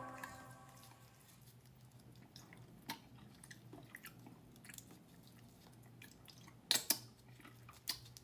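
Faint eating sounds from a person working through a seafood boil: chewing and wet, squishy mouth clicks, with a few louder sharp clicks near the end.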